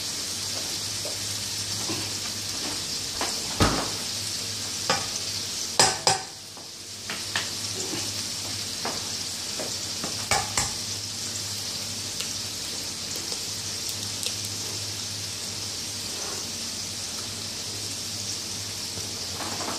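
Hamburger patties frying in a skillet, sizzling steadily over a low steady hum. A few sharp knocks and clinks of kitchenware come through it, several in pairs.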